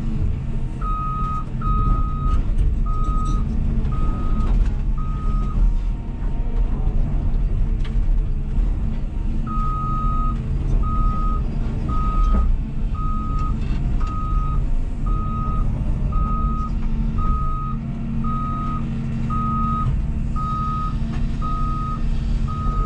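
Cat 323F excavator's diesel engine running steadily, heard from inside the cab, with a back-up alarm beeping about once a second at a single pitch; the beeping stops for a few seconds about a quarter of the way through, then starts again.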